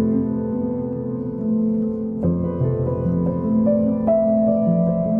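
Background instrumental music led by piano: slow held chords, with new notes struck about two seconds in and again about four seconds in.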